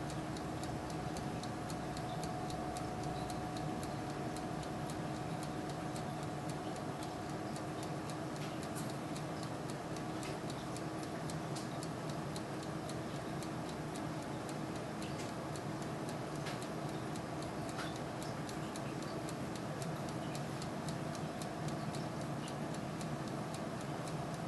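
Turbo convection oven running while it cooks pork chops: a steady fan whir with a constant hum, and light, irregular ticks over it.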